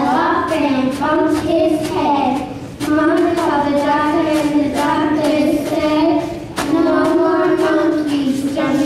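Young girls singing a song together through microphones, holding long notes, with an acoustic guitar strumming along.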